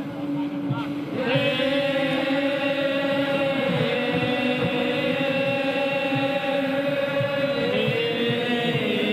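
Thai royal barge song (kap he ruea) chanted by the barge crews in long, drawn-out held notes. The voices swell about a second in and shift pitch near the end.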